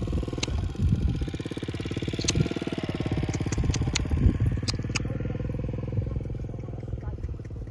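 A motor vehicle's engine running close by with a fast, even beat, fading near the end, with a few sharp clicks over it.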